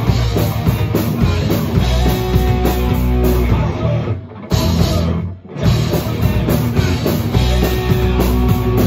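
Heavy rock music with a drum kit and electric guitar, dropping away briefly for about a second midway before coming back in.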